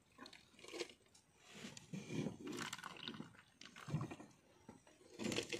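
A person chewing and crunching cooked river shrimp, shells and all, in irregular bouts with short pauses between.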